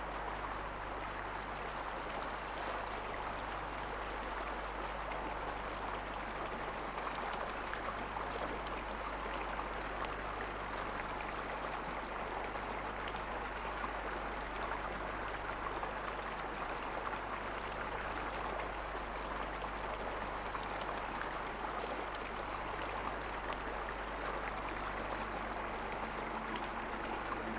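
Steady rushing of a shallow stream flowing over rocks, with a faint steady low hum underneath.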